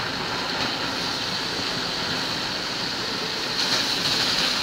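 Steady rushing noise from a vehicle moving on a wet road: wind and tyre hiss, growing a little louder near the end.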